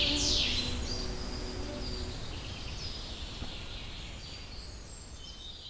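Birds chirping over a steady outdoor hiss, with a few held notes of background music dying away about two seconds in. The whole sound fades down gradually.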